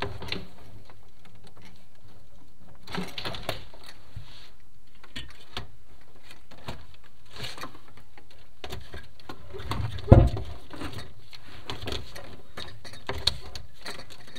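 Irregular clicks, taps and rattles of a chimney inspection camera and its push rod being worked through a clay-tile flue, with one heavier knock about ten seconds in.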